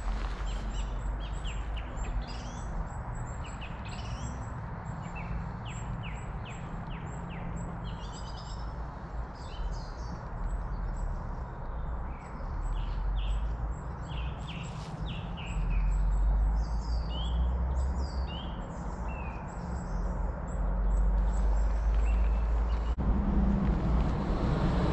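Small songbirds chirping in quick, repeated short calls over a steady low rumble that grows louder in the second half.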